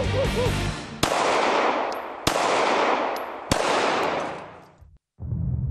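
Three gunshots about a second and a quarter apart, each followed by a long echoing tail; the last echo dies away about five seconds in.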